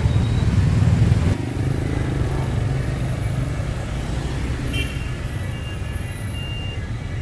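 City street traffic: a steady low rumble of passing vehicles and engines, which drops abruptly about a second and a half in and then carries on more evenly.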